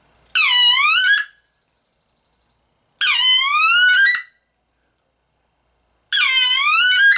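A reed wood duck call blown three times, about a second each, imitating a sitting wood duck. Each call starts on light air, breaks the reed over and then cuts off the air, so the pitch dips and then climbs to a high squeal.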